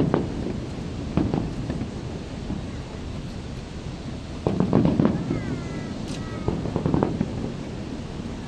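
Aerial fireworks shells bursting as booms with crackle: one at the start, one about a second in, a cluster of several near the middle, and a few more about two seconds later.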